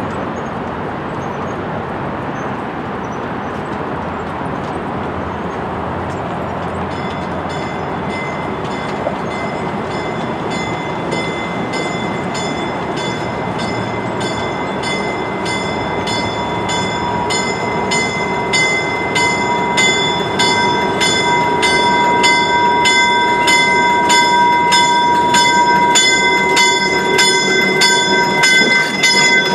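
A train running with a steady rumble; about a quarter of the way in a bell starts ringing at about two strokes a second and grows louder as it comes closer.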